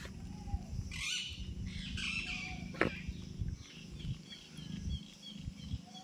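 Birds chirping: scattered short high chirps, with a quick run of small chirps near the end. Underneath, low rumble and bumps close to the microphone, and one sharp click about three seconds in.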